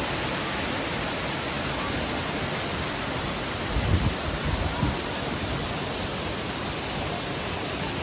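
Steady rushing roar of a waterfall. About four seconds in, a short cluster of low bumps sounds over it.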